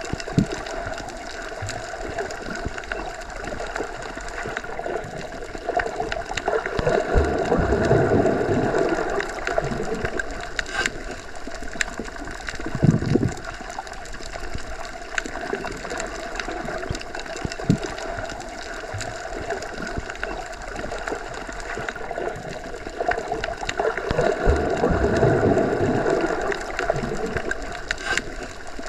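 Underwater ambience: a steady watery wash with scattered small clicks, swelling twice in slow surges.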